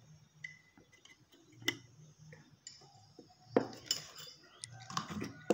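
Light metallic clicks and taps as a soldering iron, tools and component leads are handled against an aluminium heatsink plate, with a few sharper knocks a little past halfway and near the end. A faint low hum runs behind.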